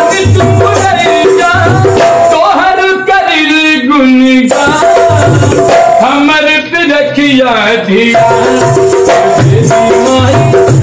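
Dholak played by hand in a fast, steady folk beat, its bass head thumping at regular intervals, with held melody notes over it. Twice a long wordless sung note slides up and then falls.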